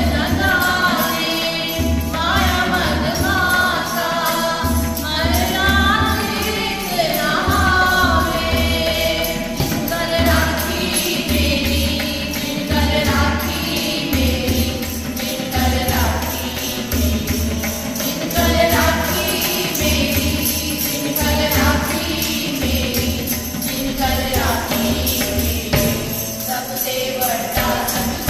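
Group of women singing a Sikh shabad kirtan together, accompanied by a harmonium's sustained reed tones and tabla with deep bass strokes about once a second, and a hand-held jingling percussion instrument keeping the beat.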